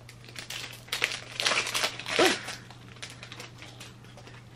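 Packaging crinkling and rustling as a two-magnet pack is handled and opened, in a run of short rustles between about one and two and a half seconds in.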